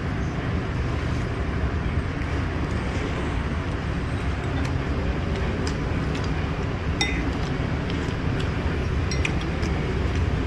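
A metal spoon and chopsticks clinking lightly against a soup bowl a few times, the clearest clink about seven seconds in, over a steady rumble of street traffic.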